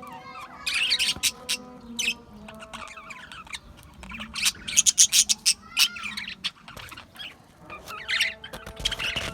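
A group of budgerigars chirping and squawking in rapid clusters of short, high calls, busiest about a second in, around five seconds in and near the end, over a faint steady hum.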